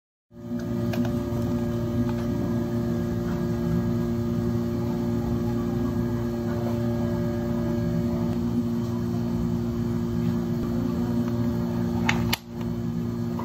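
Steady electrical machine hum from cafe equipment running, with a few fixed low tones. There is a single sharp click near the end, and the sound cuts off abruptly.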